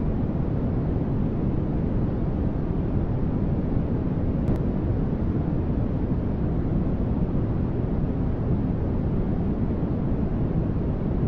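Continuous generated static noise for sleep masking: an even, unchanging hiss, strongest in the low end and dull at the top.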